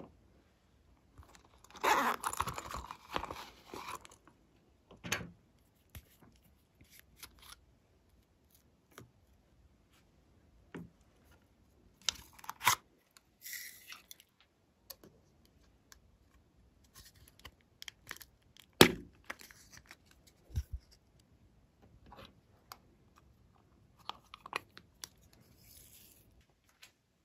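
Hands handling small plastic toy containers: scattered clicks and taps of plastic, with a burst of crinkly rustling about two seconds in, a shorter one past the middle, and a single sharp click a little later.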